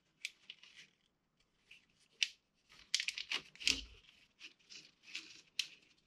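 Plastic split wire loom being opened and worked over a bundle of wires by hand: scattered crinkles, rustles and small clicks, busiest in the middle, with a dull knock just under four seconds in.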